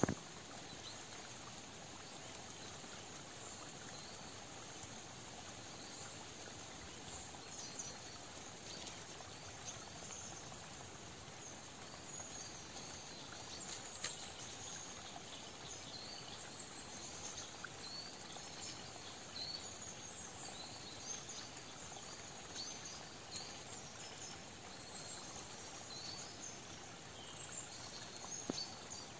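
Autumn woodland ambience: a steady faint hiss with scattered short, high chirps and calls throughout, and an occasional faint click.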